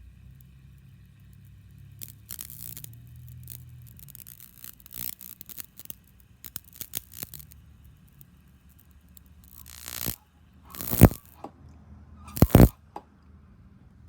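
Small carbon arc between carbon brushes crackling and sputtering in irregular bursts, with a few louder, sharper crackles in the last few seconds.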